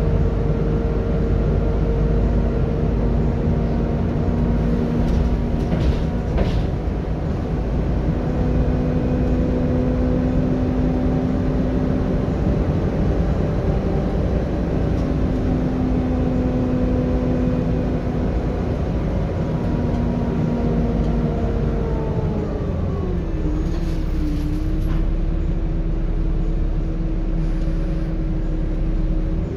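Volvo B7TL double-decker bus running on the road, heard from inside the passenger saloon: a steady low engine rumble under several whining tones from the engine and its cooling fan. About three-quarters of the way through, the main whine drops in pitch and settles lower.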